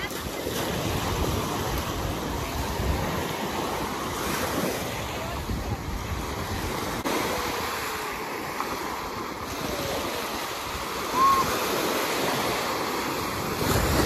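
Small waves breaking and washing up a sandy shore, with wind buffeting the microphone. A brief high cry rises and falls about eleven seconds in.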